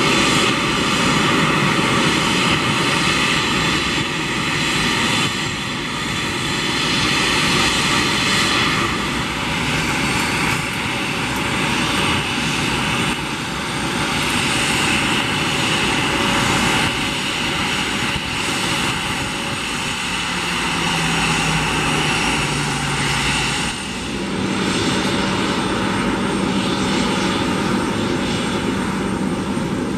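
Jet airliner engines running at taxi power: a steady rushing engine noise, with a high whine from about halfway through that drops away near the three-quarter mark, and a low hum coming in toward the end.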